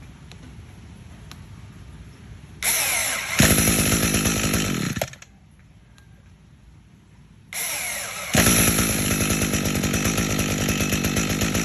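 Brush cutter's small engine being started with a homemade starter. A short whir comes first, then the engine catches and runs for about a second and a half before cutting out. A few seconds later it is cranked again, catches and keeps running.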